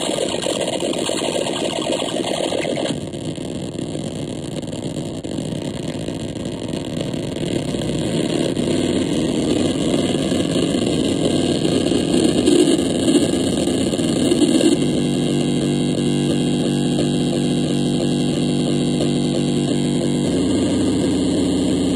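Handmade multi-oscillator noise synthesizer, patched with an alligator-clip lead across its bolt terminals, putting out a steady buzzing drone of several stacked tones. The drone changes abruptly a few times as its knobs are turned.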